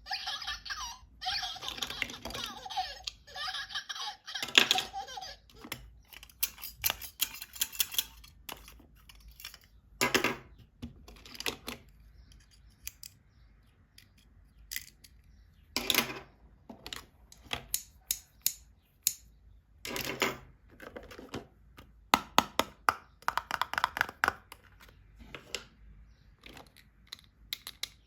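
Plastic toys and their packaging being handled: scattered clicks, taps and crinkles, some in quick runs. For about the first five seconds a denser sound with a steady held tone plays underneath.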